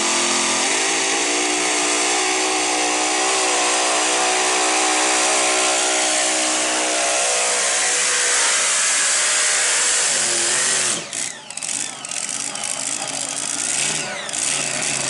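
Mini-class pulling tractor's engine at full throttle, pulling the weight sled: a loud, steady, high-revving scream whose pitch climbs in the first second. About eleven seconds in the revs fall away, and the engine then runs unevenly.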